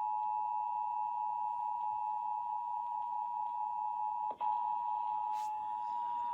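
Emergency Alert System two-tone attention signal (853 and 960 Hz sounded together) on a radio broadcast, announcing a Required Monthly Test: a steady two-pitched tone that briefly cuts out with a click about four seconds in, then resumes.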